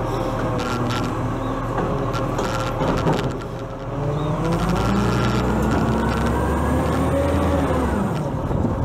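Side-loader garbage truck: the engine runs steadily while the lifting arm sets the bin down, then the diesel engine revs up as the truck pulls away, its pitch rising for a few seconds before it drops near the end.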